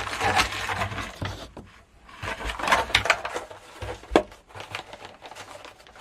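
Small hardware items and their packaging being handled and gathered together: rustling with light clattering, and a sharp knock about four seconds in.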